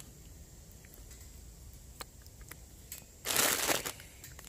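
A knife cutting tomatoes on a steel plate: a few light clicks, then a short, louder scrape lasting about half a second, a little after three seconds in.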